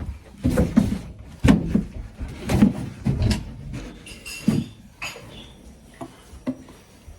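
A door being opened and shut, with a series of knocks and handling clatters.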